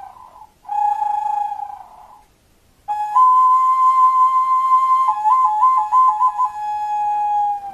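Handmade clay wind instrument blown as a whistle in long, clear notes imitating an owl (tecolote). Three notes: a short one, a second about half a second later, then a long one that steps up in pitch and warbles quickly between two notes before settling back down.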